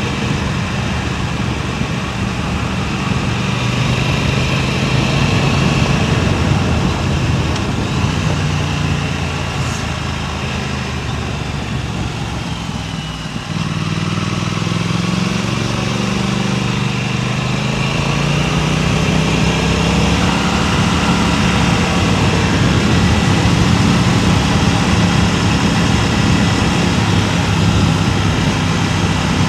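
Motorcycle engine running under way, mixed with wind noise on a clip-on wireless microphone. About halfway the engine note drops off briefly, as in a gear change, then rises in pitch as the bike pulls again.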